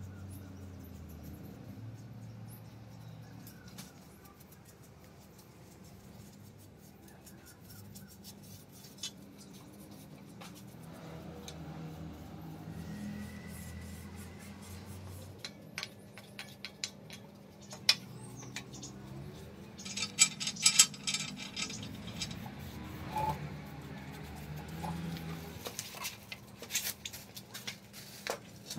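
Brush strokes and small taps and clicks of a paintbrush working paint onto a cast-iron sewing machine stand, with a quick run of sharp clicks about twenty seconds in.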